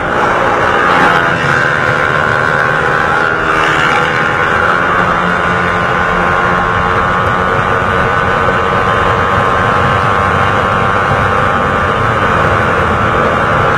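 A 150 cc single-cylinder motorcycle engine running steadily at speed, heard from on board the bike.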